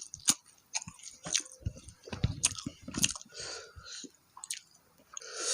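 A person chewing food close to the microphone: wet smacks and sharp crunchy clicks at irregular intervals.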